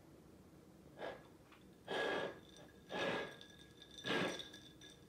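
A cat's paw splashing and slapping the water in a ceramic drinking bowl, four splashes about a second apart.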